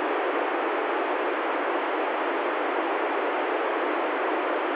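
Steady FM static hiss from an ICOM ID-51 handheld receiver tuned to the ISS downlink on 145.795 MHz. The squelch is open and no carrier is coming in: the ISS transmitter is off between answers.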